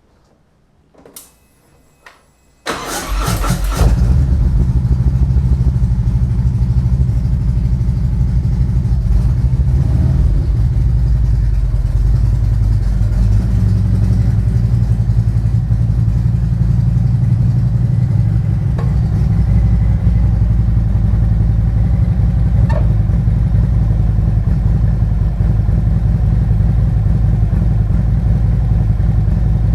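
Harley-Davidson Road King's 117 cubic-inch V-twin being started: two faint clicks, a second or so of starter cranking, then the engine catches about four seconds in and runs steadily.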